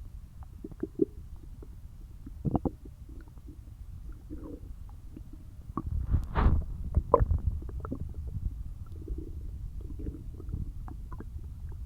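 Empty human stomach growling from hunger: a low rumble with short gurgles and pops, swelling into its loudest, longest gurgle about six seconds in.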